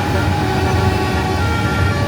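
Large vehicle engine running, a steady low rumble with a few faint steady tones over it.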